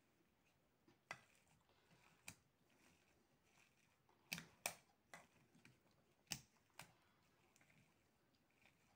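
Metal potato masher working boiled potatoes in a glass dish: a few faint, scattered clicks and knocks as it presses down and touches the dish, with near silence between them.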